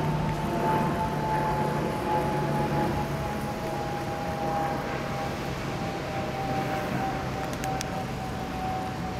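A distant steady whine slowly falling in pitch, over a low hum and a background hiss.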